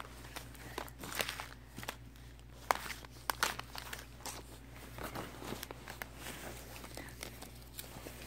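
Faint handling noise: scattered light clicks and rustles, with one sharper click a little under three seconds in, over a low steady hum.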